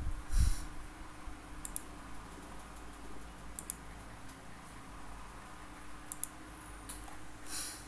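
A few faint, sharp computer clicks, mostly in quick pairs like double-clicks, over a low steady hum of room tone. A soft rustle comes just after the start and another near the end.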